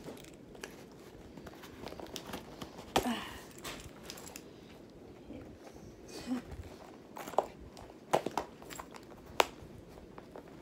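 Cardboard box being worked open with a key: scraping and rustling at the packing, broken by a few sharp clicks and knocks.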